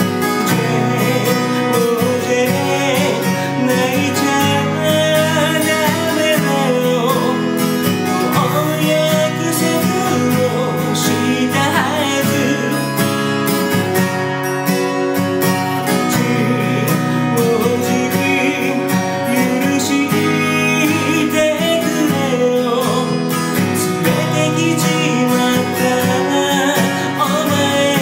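A man singing while strumming chords on an acoustic guitar fitted with a capo.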